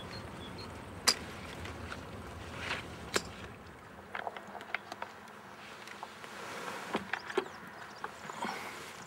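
Quiet outdoor garden ambience: a low background hum with scattered small sharp clicks and rustles, the loudest click about a second in and another about three seconds in.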